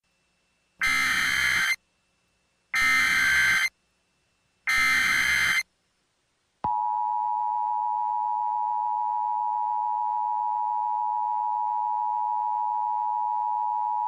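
Emergency Alert System tones: three bursts of SAME header data, each about a second long and two seconds apart, then about six and a half seconds in the two-tone EAS attention signal starts, a steady dual tone held to the end.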